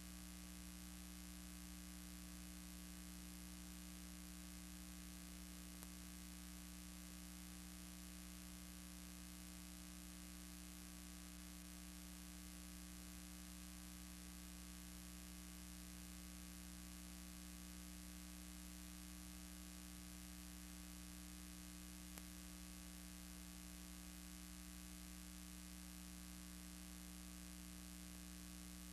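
Near silence: a steady low electrical hum with hiss, unchanging throughout.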